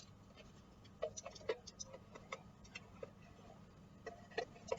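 Light, irregular clicks and taps of a measuring spoon against a spice jar as cumin is scooped and tapped out. They start about a second in and come more thickly near the end.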